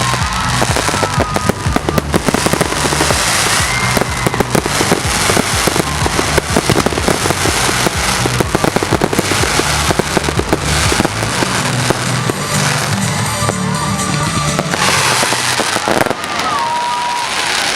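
Fireworks display: a dense, continuous barrage of rapid bangs and crackling shell bursts, with music playing underneath as part of a pyromusical show.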